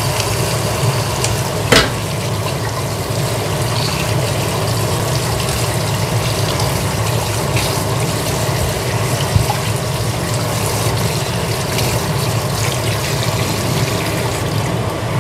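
Kitchen tap running steadily into a stainless-steel sink and metal bowl as a squid is rinsed and cleaned under the stream, with one sharp click about two seconds in and a steady low hum underneath.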